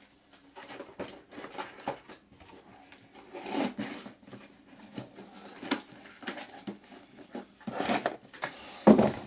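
Handling noise of PC front-panel wires and a small plastic connector inside a computer case: scattered light clicks and rubbing, with louder rustles about a third of the way in and near the end.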